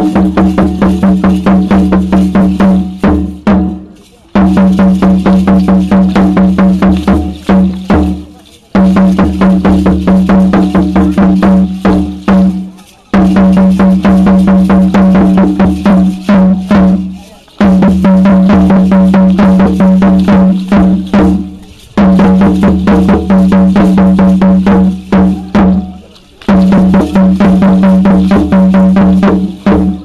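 Drumming for an Aztec dance: fast, even drumbeats with a strong low ring, played in phrases of about four seconds, each ending in a short break.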